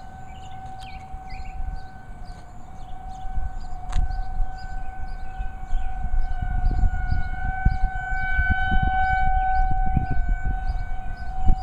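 Outdoor tornado warning siren sounding a steady wail at one held pitch during its routine monthly test, with low rumbling bursts on the microphone from a few seconds in.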